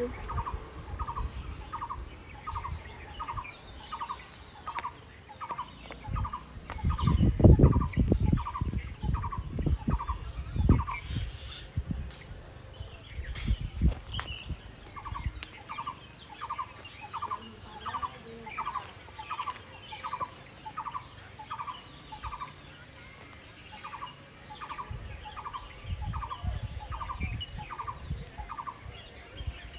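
A bird calling a long series of short, evenly spaced notes, about two a second, in three runs with brief breaks. Low rumbles come and go underneath, loudest about seven to eleven seconds in.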